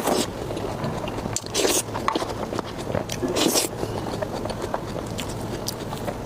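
Close-miked eating: a person biting and chewing food, with wet smacking clicks and three louder bites or slurps about a second and a half apart.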